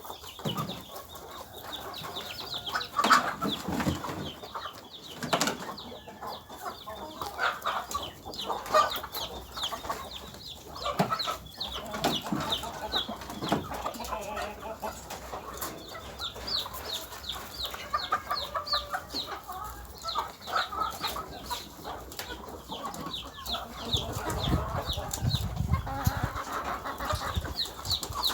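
Chickens clucking and moving about, with some wing flapping and scattered sharp knocks. In the second half, short high-pitched peeps repeat quickly, several a second.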